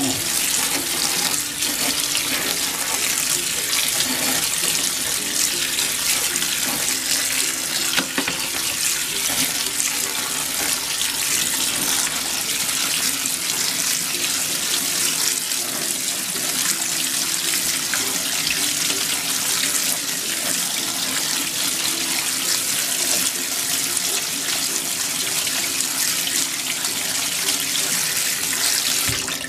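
Cold water running from a kitchen tap in a steady stream onto cooked elbow macaroni in a plastic colander, splashing through into a stainless steel sink.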